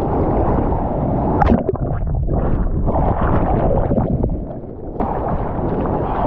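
Seawater churning and splashing right at a surfer's GoPro as he paddles into and rides a wave. The water noise drops away briefly about four and a half seconds in, then returns suddenly.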